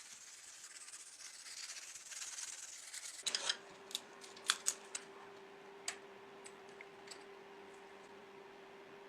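Soft rubbing or scraping on the toy car's parts for about three seconds. It stops, a faint steady hum begins, and several sharp light clicks of small metal parts follow.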